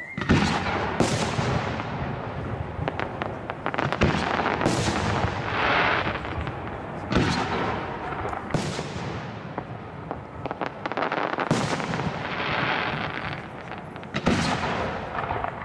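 Large aerial firework shells bursting in a steady series, a bang every second or two, each trailing off in a long echoing rumble.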